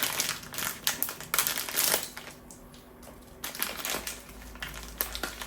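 Blind-box packaging being opened by hand: cardboard and plastic wrapping crinkling and crackling, busiest in the first two seconds, then quieter handling with a few clicks.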